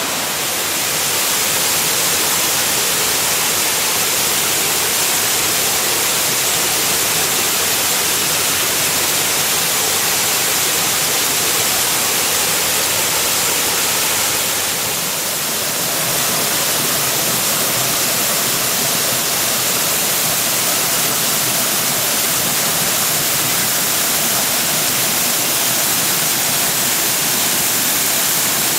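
Waterfall rushing: a steady, loud wash of falling water, easing slightly for a moment about halfway through.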